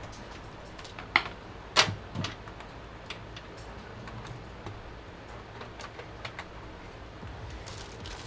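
A few sharp clicks and knocks from hands handling a PC case, the loudest about two seconds in, with lighter ticks scattered through.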